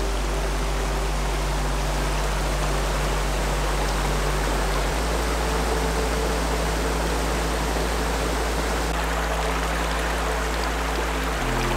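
Steady rush of water from a forest stream pouring over small rock cascades at a waterfall. Underneath are low held notes that change every few seconds, like a soft background music bed.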